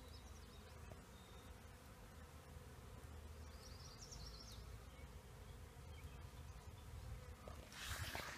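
Honeybees buzzing faintly as they feed on a tray of leftover honeycomb. Near the end a louder rustling noise comes in.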